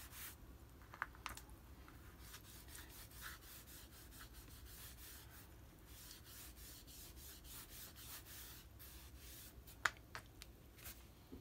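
Faint scratchy rubbing of a small sponge-tipped PanPastel applicator stroked and dabbed across paper, with a single sharp click near the end.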